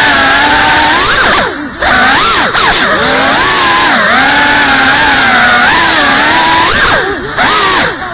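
GEPRC CineLog35 cinewhoop's four brushless motors and ducted propellers whining as it flies, the pitch rising and falling constantly with the throttle. The whine drops away briefly about a second and a half in and twice near the end as the throttle is cut.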